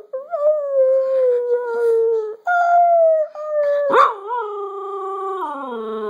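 Cocker spaniel howling in several long, drawn-out notes, with a person howling along in a pack howl; the last howl slides down in pitch near the end.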